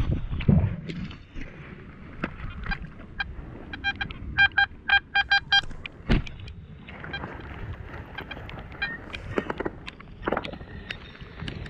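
Makro metal detector giving a target signal: a quick run of short, identical beeps, about five a second, around four seconds in, as the coil passes over a dug hole. There are dull thuds of boots and digging in wet clay, and near the end a steady tone from a pinpointer probing the hole.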